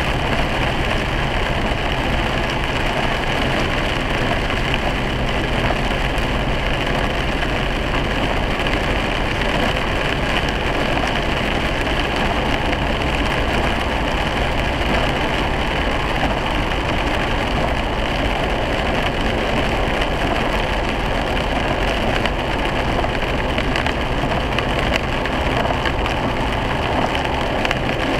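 Steady in-cabin driving noise of a 2008 Ford Crown Victoria Police Interceptor on a wet road: tyres on wet pavement and the 4.6-litre V8 running, picked up by a windshield dashcam's microphone.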